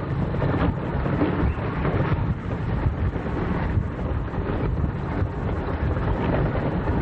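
Wind buffeting the camcorder microphone: a heavy, uneven rumble with gusts swelling and fading.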